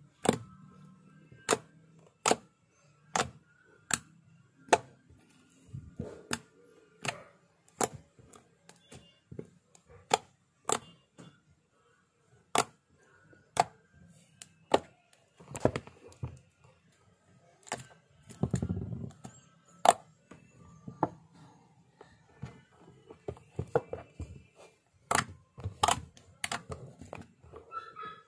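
Glossy slime being poked and pressed by fingers, giving sharp clicking pops at irregular intervals, roughly one a second, with a longer squelching stretch about two-thirds of the way through.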